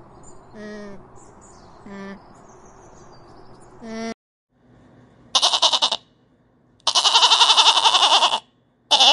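Sheep bleating three times in a wavering voice, the middle bleat the longest, starting about five seconds in after fainter bird chirps.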